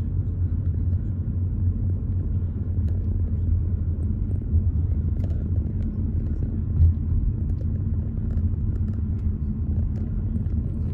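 Steady low rumble of a car driving, with a brief louder bump about seven seconds in.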